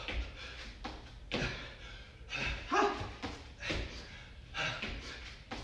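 A person doing burpees: thuds of feet landing on a mat over concrete about once a second, each with a hard, noisy exhale. There is one short vocal grunt about halfway through.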